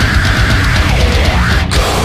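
Loud heavy metal music with fast drumming, in an instrumental stretch without singing.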